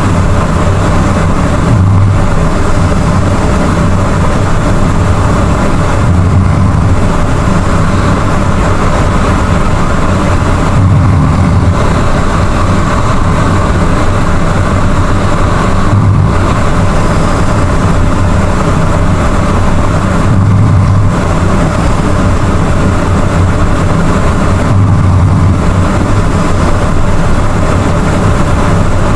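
Loud, low snoring: a continuous rumble that swells in a regular rhythm about every four to five seconds, one swell per breath.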